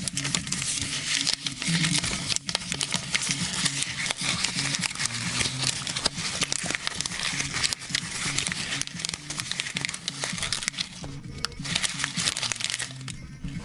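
Souvenir paper ruble banknotes being rustled and crinkled by hand: a dense, continuous crackling made of many small sharp snaps.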